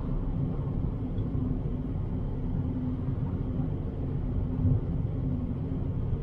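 Fiat Bravo 1.6's engine humming at steady revs under a low rumble of tyre and road noise on a snow-covered road, heard inside the car's cabin. A short thump comes about three-quarters of the way in.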